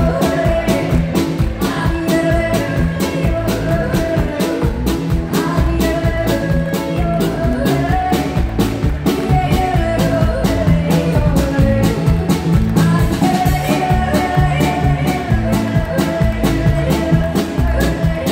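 Live band playing through a PA: a woman singing into a microphone over a steady drum beat, electric guitar and keyboard.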